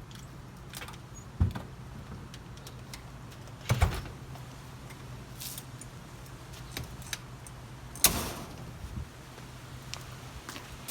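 Car door and key handling: three thumps, about a second and a half in, near four seconds and around eight seconds, with small clicks between, over a steady low hum.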